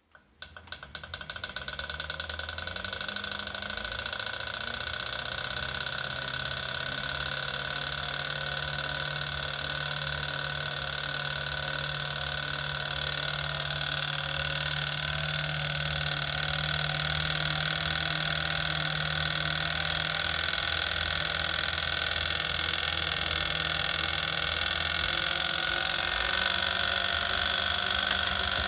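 Wahoo KICKR Snap wheel-on bike trainer running under pedalling, the roller and flywheel spinning up over the first few seconds and then holding a steady whine with a fast, even clicking. The clicking is a fault in the trainer itself, since the drivetrain is almost silent with the roller off the wheel.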